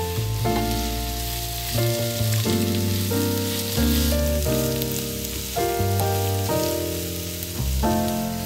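Chopped celery, carrot and onion sizzling in oil in a frying pan, a steady hiss. Background music of sustained notes, changing every second or so, plays over it and is at least as loud.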